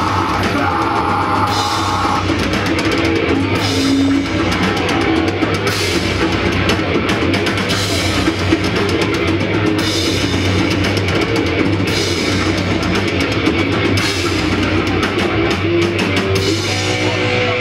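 Metal band playing live: distorted electric guitars and bass over a full drum kit, with cymbal crashes about every two seconds.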